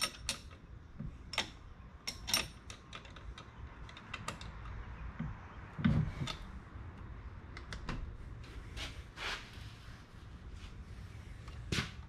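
Irregular light metallic clicks and clinks of hand tools working the pivoting side-handle clamp of an electric jackhammer, with a duller knock about six seconds in.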